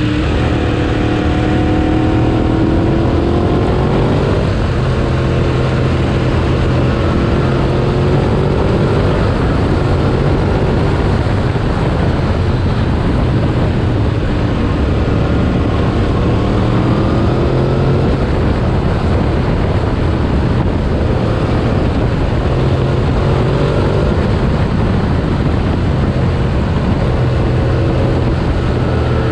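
Sport motorcycle engine on the move, rising in pitch as it accelerates about four times, over a steady heavy rush of wind noise.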